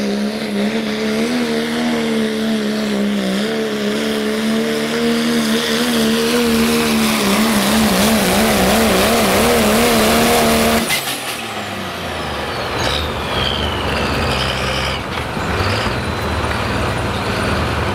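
Pro Stock diesel 4x4 pickup's engine running at full throttle under load as it pulls the sled, its pitch steady at first, then wavering rapidly as the truck bounces. About eleven seconds in the engine note cuts off abruptly as the driver lifts off at the end of the pull, and a whine falls in pitch as it winds down.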